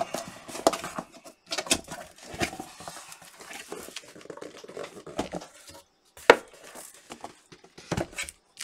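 Cardboard shipping box being handled and opened: irregular scraping, rustling and knocking of cardboard, with one sharp knock about six seconds in.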